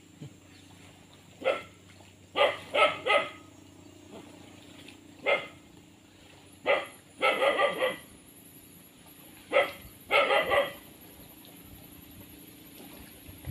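A dog barking repeatedly, with single barks and quick runs of two or three, and pauses of a second or two between.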